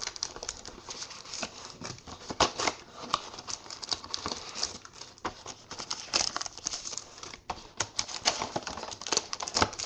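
Sealed trading-card packs being handled and opened, their wrappers crinkling and rustling, with irregular sharp taps and clicks.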